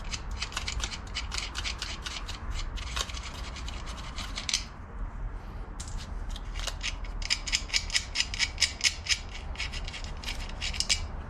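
Hand ratchet wrench clicking in quick runs as a bolt is turned, about four or five clicks a second. There is a short pause about halfway through, and the clicks are louder near the end.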